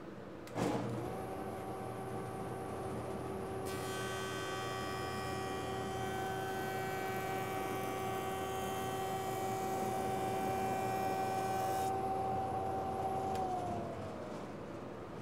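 A jointer is switched on and its motor comes up to a steady hum. About four seconds in, a board edge is fed across the spinning cutterhead for about eight seconds, taking a very slight trimming cut that adds a high hiss. The machine is then switched off and winds down with a falling tone near the end.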